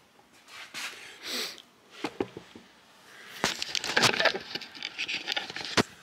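Rustling and clicking handling noise from someone walking with a handheld camera: a few brief rustles, then a denser stretch of rustling and sharp clicks in the second half.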